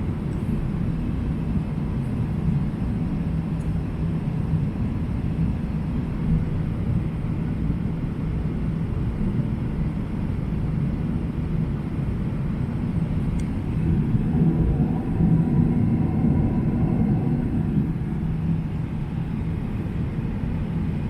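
Boeing 777-300ER cabin noise: a steady, loud rumble of engines and airflow with a constant low hum, swelling for a few seconds about two-thirds of the way through.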